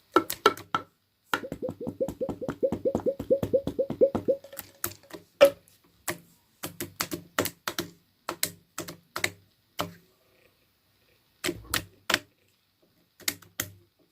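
Slime being pressed and worked, making sharp crisp clicks and pops: a quick even run of about five a second, then scattered single clicks and pairs with short pauses between.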